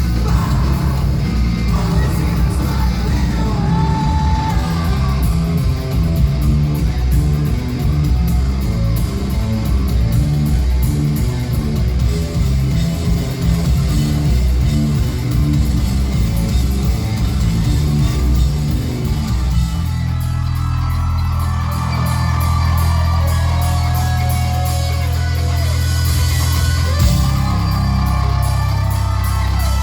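Live rock band playing a song loudly, with electric guitar, drums and singing. About two-thirds of the way through, the busy rhythmic playing gives way to long held chords under the vocal.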